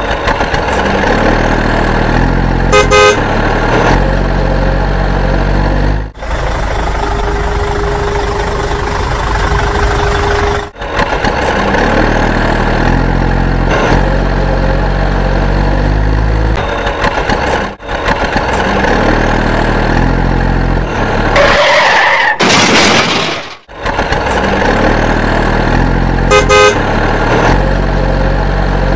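A dubbed sound-effects track of a truck engine running, spliced from clips that cut in and out abruptly, with short horn toots twice and a brief louder blast about two-thirds of the way through.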